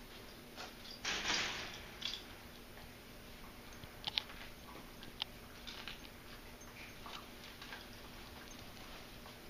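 Beagle gnawing on a bone: faint, irregular clicks and scrapes of teeth, with a louder scrape about a second in and a pair of sharp clicks about four seconds in.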